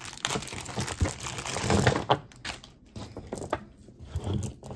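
Rustling of wrapping as costume jewelry is unwrapped and handled for about two seconds, then scattered light clicks as the pieces knock together.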